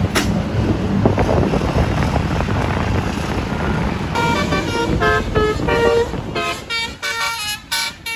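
Bus engine and road rumble, then from about four seconds in a telolet horn plays a melody of short stepped notes. The tune turns choppy near the end.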